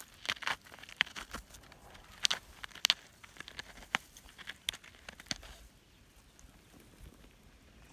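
Short-beaked echidna digging with its snout and claws in dry soil and leaf litter: irregular scratching and crackling of dirt and twigs, dying down a little over five seconds in.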